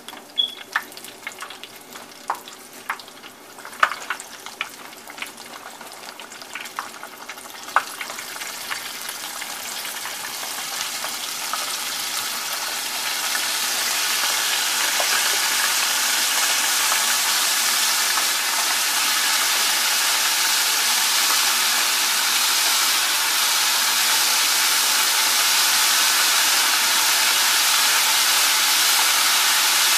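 Buttermilk-soaked, flour-dredged chicken gizzards deep-frying in a pot of hot oil. Scattered sharp pops and crackles for the first several seconds, then the sizzle builds into a loud, steady hiss that holds.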